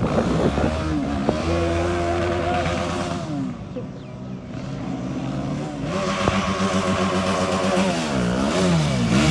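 Motorcycle engine revving: the pitch climbs and holds, drops off about three seconds in, then climbs again and dips twice near the end.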